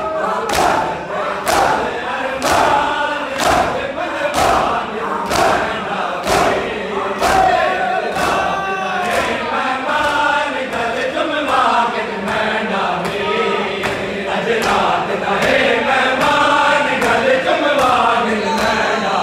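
A crowd of men chanting a mourning noha in unison, with sharp hand slaps of matam on bare chests about once a second.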